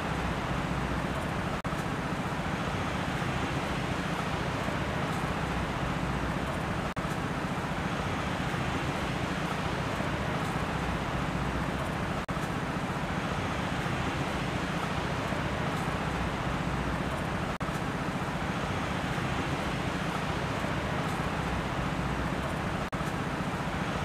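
Steady rushing ambient noise, even and continuous, with a brief dip in level about every five seconds.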